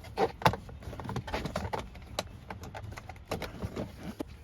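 Irregular plastic clicks and knocks as a car's steering column trim cover is worked loose by hand, its clip tabs being pried and snapped free.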